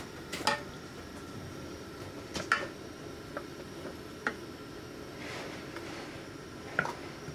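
Wooden spatula stirring soup in a stainless steel pot, tapping and knocking against the pot with scattered sharp clicks a second or two apart, the loudest about half a second and two and a half seconds in.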